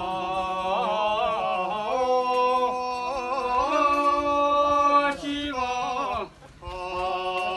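Voices singing a slow folk chant in long held notes with small ornamental turns, breaking off briefly about six seconds in before going on.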